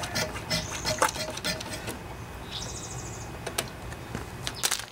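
Small hand pump being worked to draw gasoline out of a lawnmower's fuel tank, with repeated clicks and a faint squeaky tone. A short high trill sounds about two and a half seconds in.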